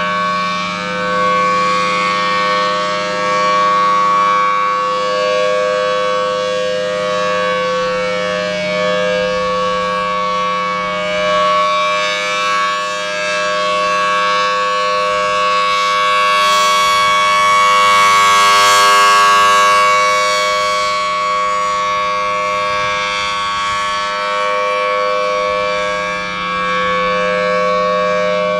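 Federal Signal Thunderbolt 1000T dual-tone outdoor warning siren sounding a steady alert tone during a routine test. Its loudness swells and fades, peaking a little past the middle.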